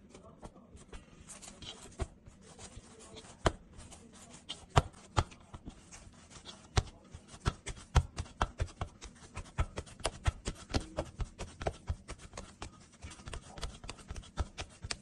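Hands patting, slapping and rolling soft flour dough into balls against a floured metal bowl: quick irregular slaps and taps, sparse at first and coming faster from about halfway.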